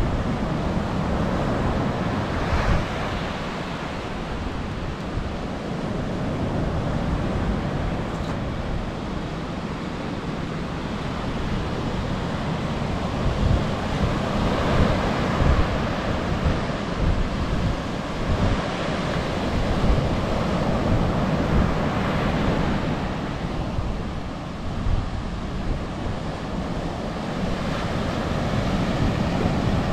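Surf breaking and washing up a sandy beach, a steady rushing wash that swells and eases every few seconds, with wind rumbling on the microphone.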